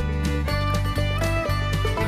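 Background instrumental music with a steady rhythm.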